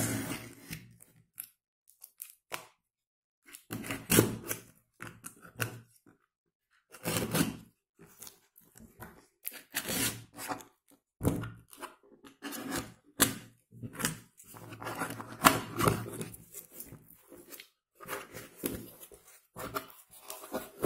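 Utility knife slitting packing tape on a corrugated cardboard box, and the cardboard flaps being pried open and handled: irregular scraping, tearing and rustling bursts with short pauses between.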